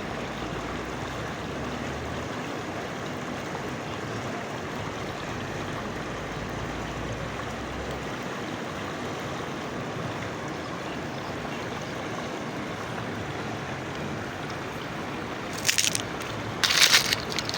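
Steady rushing of water, with two brief louder bursts of noise about a second apart near the end.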